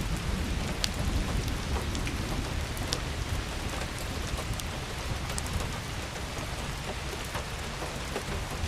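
Steady rain falling, with scattered sharp drop ticks over a low rumble.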